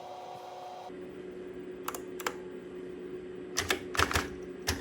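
NEC Spinwriter 7720 printer's servo control buzzing as it resists parts being pushed into the machine. It is a steady hum that deepens about a second in, with sharp plastic clicks and knocks of the thimble and ribbon pieces being seated, several in quick succession near the end.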